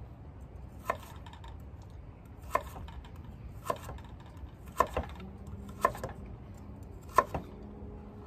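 Chef's knife slicing through raw peeled sweet potato and knocking on a wooden cutting board, six sharp knocks about a second apart.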